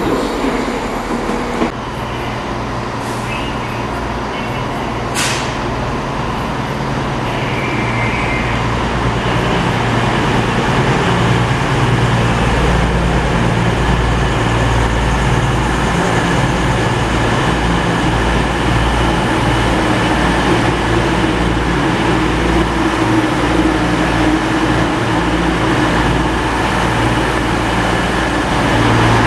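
Diesel passenger train's engines running alongside the platform, a steady low drone that grows slowly louder.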